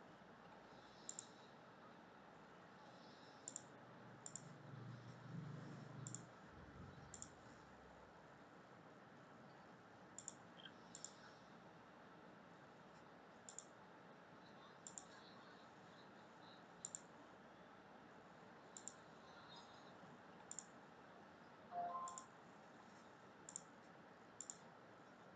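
Faint computer mouse clicks, scattered one every second or so, over near-silent room tone. A soft low rumble comes about four to six seconds in, and a brief faint tone near the end.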